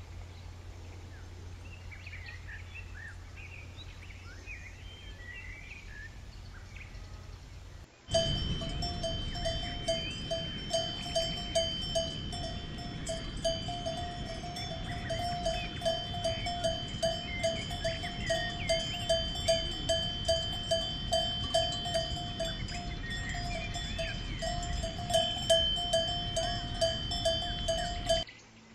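For the first eight seconds, a steady low rumble with faint bird chirps. Then a cowbell on a cow's collar starts suddenly and clanks in a steady rhythm, about two strikes a second, each ringing on, and stops just before the end.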